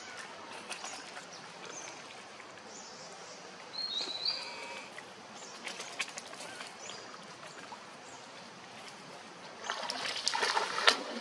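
Shallow stream running steadily, with a few short high chirps about four seconds in. Near the end a monkey plunges into the water with a loud splash.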